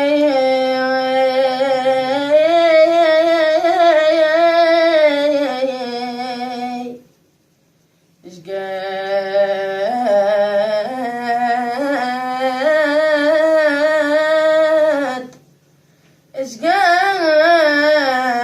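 A solo voice singing long wordless held notes with wavering ornaments, in three phrases broken by two short pauses.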